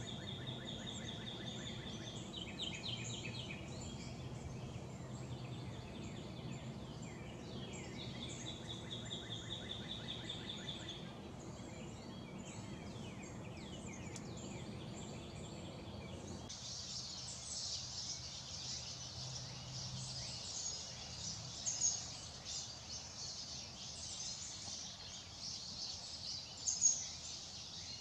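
Woodland birds calling: a high trill held for about two seconds and repeated, and quick chirping notes, over a low steady hum. About sixteen seconds in, the sound changes abruptly to a dense, high-pitched insect chorus with a few louder bird chirps.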